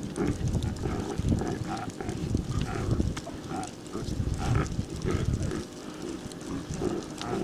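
A herd of reindeer grunting, their low calls overlapping one another.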